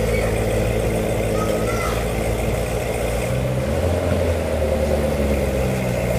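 Chevrolet Corvette Stingray C7's 6.2-litre LT1 V8 running at idle, steady and even, its note shifting a little lower-down for a couple of seconds about halfway through.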